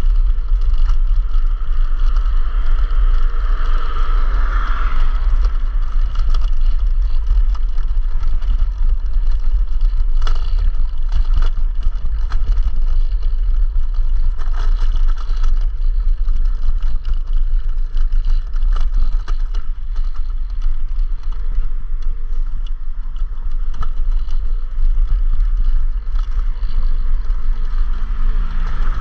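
Wind buffeting the microphone of a chest-mounted GoPro on a moving electric scooter, a constant deep rumble over the running noise of the ride, with a few short knocks here and there.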